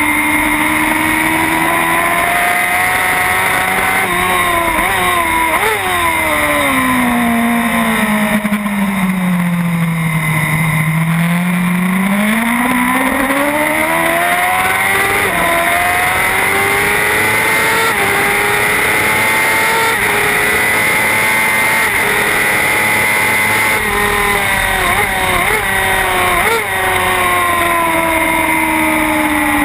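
Race motorcycle engine heard onboard at racing speed. The revs drop through a series of downshifts to their lowest about ten seconds in, climb back up through the gears, then fall again with more quick downshift blips near the end, over steady wind rush on the bike-mounted microphone.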